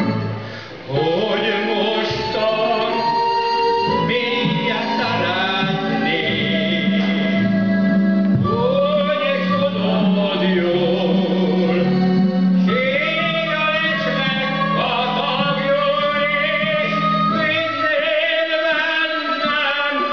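A man singing a Hungarian song into a microphone, holding long notes with vibrato over instrumental accompaniment.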